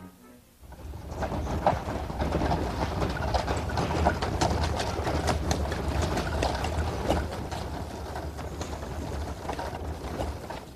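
Street crowd noise with a dense clatter of short clicks, starting about a second in and running steadily.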